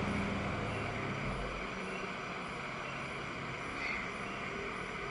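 Steady background hiss heard through a phone's live-stream audio, with a low hum that fades about a second and a half in.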